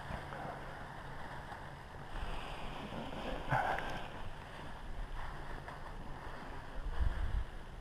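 Light wind buffeting the microphone of a head-mounted camera in low rumbling gusts, strongest about seven seconds in, with a short rustle of harness gear about three and a half seconds in.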